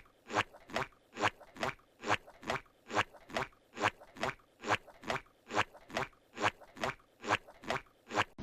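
Steady, regular crunching, about two crunches a second, evenly paced.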